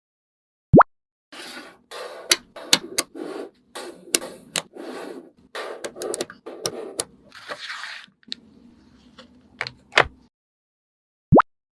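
A run of short scraping and rustling handling noises with sharp clicks, as when materials are worked by hand while making a toy. A quick rising 'bloop' sound effect sounds about a second in and again near the end.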